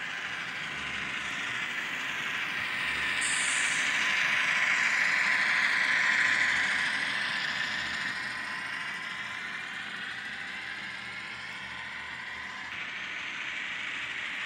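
N scale model train running past on the track: a steady whirring of wheels and motor that swells as the train passes close by, loudest around six seconds in, then fades.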